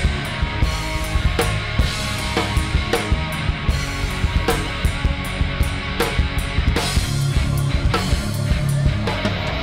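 Rock drum kit played live, with kick drum, snare hits and cymbal crashes, over a recorded rock song with electric guitar and bass.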